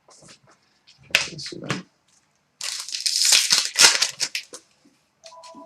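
Foil hockey card pack wrappers crinkling and tearing as packs are ripped open and the cards handled, in two crackly spells with sharp clicks. A faint steady two-note tone starts near the end.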